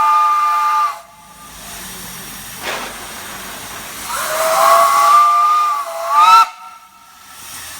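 Multi-chime steam whistle sounding a chord of three notes in two blasts. The first cuts off about a second in; the second starts about four seconds in and ends with a quick upward swoop at its loudest before shutting off. Steam hisses between the blasts.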